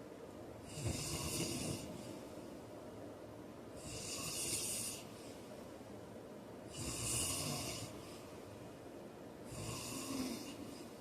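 A heavy man snoring in his sleep: four snores about three seconds apart, each a low rumble with a breathy hiss. The first, about a second in, is the loudest.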